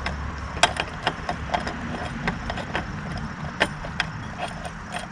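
Irregular metallic clicks and ticks, a few a second, of an Allen wrench turning and re-seating as it tightens a floorboard mounting screw down until snug.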